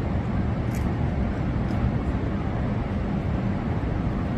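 Steady low rumbling background noise, with a few faint high ticks.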